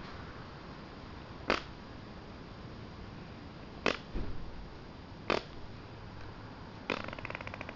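A buzzy, rapidly sputtering fart noise starting about seven seconds in, after three brief sharp sounds spaced a second or two apart.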